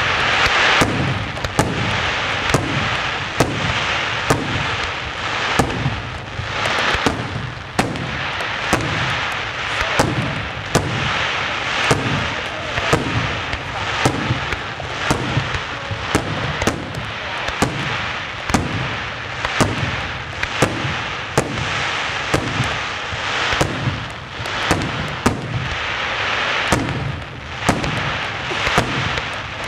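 Aerial firework shells bursting in quick succession at a fireworks display: sharp bangs about one or two a second over a continuous wash of noise from the display.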